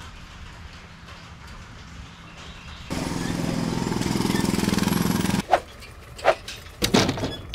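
Sound effect of duct tape being ripped off the roll: a sudden loud, rasping rip starting about three seconds in and lasting a couple of seconds, followed by three sharp slaps as the tape is pressed down. Before it, only faint room tone with a low hum.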